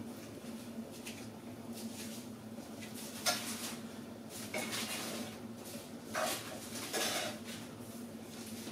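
Kitchen clatter of metal things being handled: several knocks and rattles, loudest a little over three seconds in and again around six and seven seconds, over a steady low hum.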